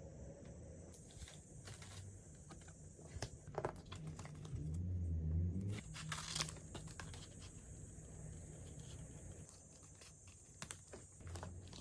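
Packaging being handled and torn open: crinkling and tearing with scattered small clicks, louder for a moment about six seconds in, over a low hum.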